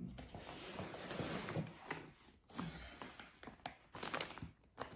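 Rustling with scattered light knocks and clicks: yarn and things around it being handled as a skein of yarn is brought out.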